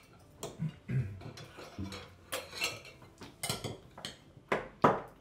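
Cutlery and plates clinking and scraping on a dining table during a meal, with a few sharper clinks in the second half.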